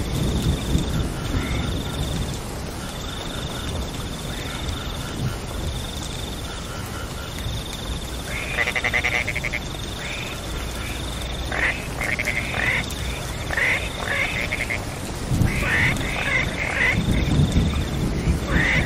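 Frogs croaking in short pulsed calls over the steady hiss of falling rain, with a high, thin trill repeating in bursts of about a second. Low rumbling swells rise near the start and again toward the end.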